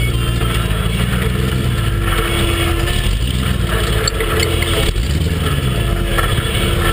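Off-road rock buggy's engine running at low, fairly steady revs as it crawls over a rocky trail, with a brief sharp knock about five seconds in.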